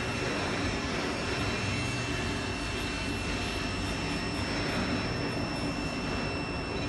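Steady drone of running machine-shop machinery, with a thin, constant high-pitched whine over it.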